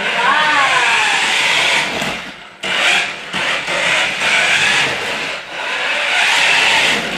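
Remote-control toy car's small electric motor whirring and its tyres running over a hardwood floor, driven in spurts: it stops briefly about two and a half seconds in, then starts again.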